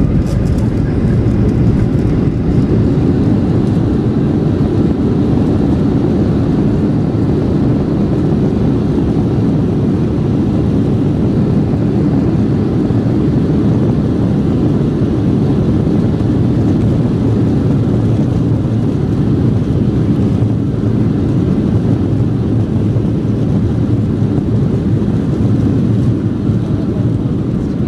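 Steady, loud rumble inside the cabin of a Boeing 737-800 rolling out on the runway after touchdown: its CFM56 jet engines and the wheels on the runway.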